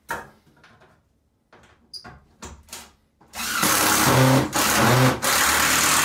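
Cordless drill boring into the top edge of a tub-surround wall panel, running at full speed in three close runs with two brief let-offs over the last three seconds. This is the drilling of pilot holes to screw the panel to the studs. Before it come a knock and a few light taps as the bit is set against the panel.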